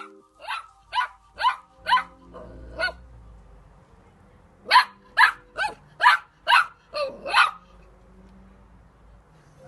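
A dog barking in two runs of short, sharp barks: about five spaced out, a pause, then about seven in quicker succession.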